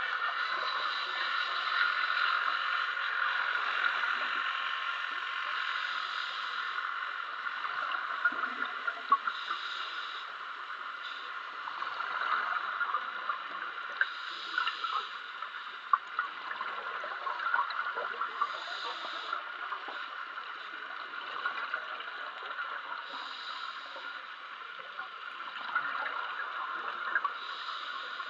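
Underwater sound of scuba diving: a steady hiss with crackling clicks, and a diver's regulator exhaust bubbles gushing out about every four seconds in time with breathing.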